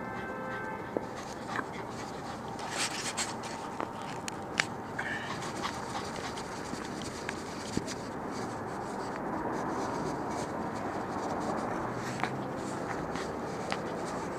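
Scratching and rustling from a dog's collar-mounted camera as the dog noses through mulch, dry leaves and shrub stems, with scattered sharp clicks, most of them in the first half.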